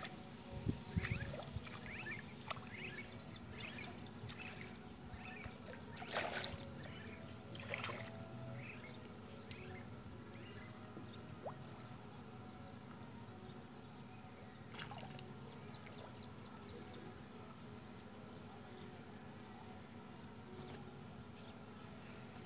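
Quiet pond-bank ambience: scattered short chirps, a few low thumps in the first second or so, and two brief sharp rustles or knocks about six and eight seconds in, over a steady high-pitched tone.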